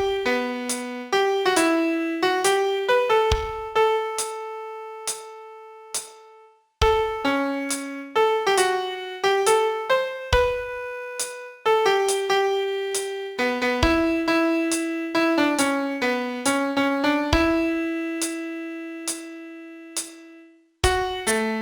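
Piano playing a slow single-note melody, each note struck and left to ring and fade. It breaks off into a short pause twice, between phrases: about a third of the way in and near the end.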